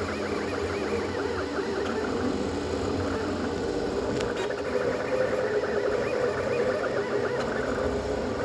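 Annex K3 3D printer printing PLA+ at high speed (250 mm/s, 20,000 mm/s² acceleration). Its stepper motors whine in quick rising and falling tones over a steady hum.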